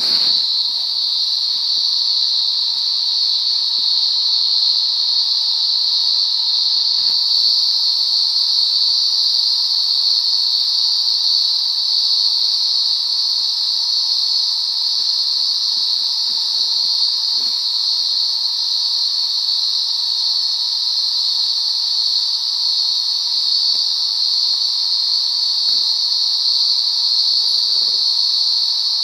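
Dense insect chorus of a summer night, a continuous high-pitched sound that holds steady without a break, with a fainter lower band of calling beneath it.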